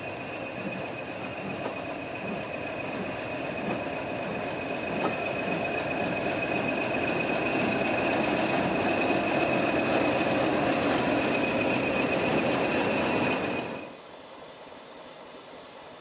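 Class 20 diesel locomotive's English Electric eight-cylinder engine running as it draws slowly past with its passenger coaches, growing louder as it nears, with a steady high whistle over the engine noise. About 14 seconds in it cuts off suddenly to quieter background noise.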